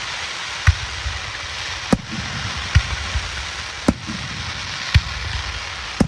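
Fireworks bursting: six sharp bangs roughly a second apart over a steady hiss.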